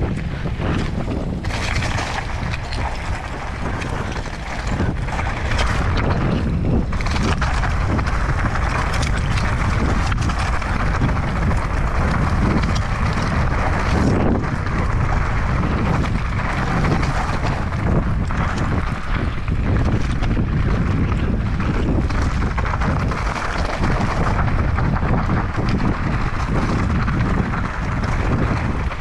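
Wind buffeting the microphone over the rumble and rattle of a mountain bike descending a rough, rocky trail, with many small knocks from the tyres and frame.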